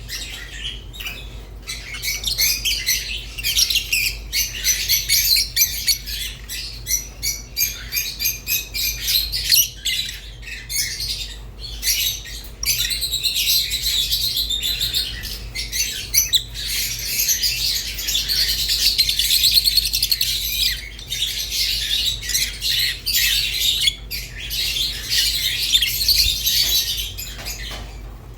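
Rosy-faced and Fischer's lovebirds chirping and chattering without a break, a dense run of quick high calls over a faint steady low hum.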